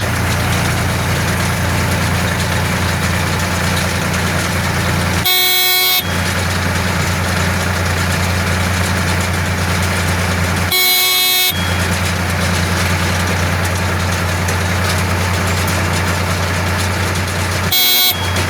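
Tractor-driven baler running with a steady low engine hum. Three short horn-like tones sound over it, about every six seconds.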